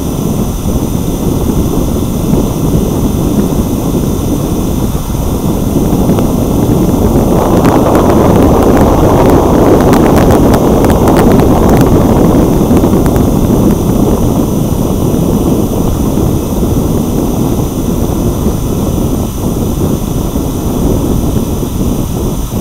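Wind buffeting the microphone of a wing-mounted action camera on an RC plane in flight: a loud, rough rushing noise that swells and crackles for several seconds around the middle, with faint steady high tones above it.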